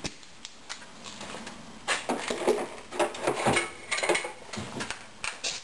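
Metal tools clinking and clattering as they are handled and set down, in a run of irregular knocks and clicks starting about two seconds in.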